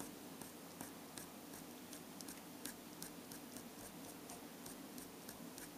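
Micron fine-liner pen tip tapping and scratching on cardstock as short arched eyelash strokes are drawn: faint, irregular small clicks, about two or three a second.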